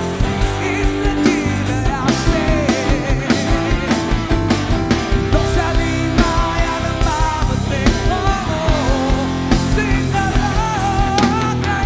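Male lead singer singing into a handheld microphone, with a live band playing a steady beat behind him.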